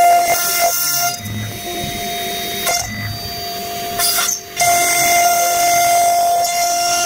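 CNC router spindle whining at a steady pitch as its bit engraves an MDF sheet, with several short bursts of louder cutting noise. The sound drops out briefly a little after four seconds in, then runs on steadily.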